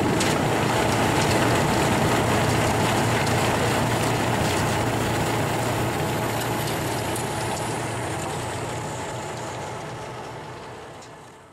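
Vehicle-mounted rotary snow blower running under load as it cuts into deep snow: the engine and the rotor churning and throwing snow make a dense, steady noise. It fades away over the last three or four seconds.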